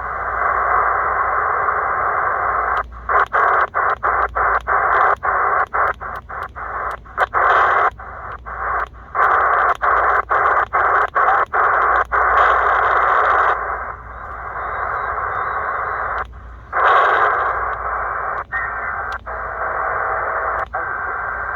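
C. Crane CC Skywave SSB receiver in upper-sideband mode on the 20-meter band: hiss of band noise through the narrow sideband filter, cut by many brief mutes as the tuning knob steps across the band. Near the end the mutes thin out and faint steady tones show through the hiss.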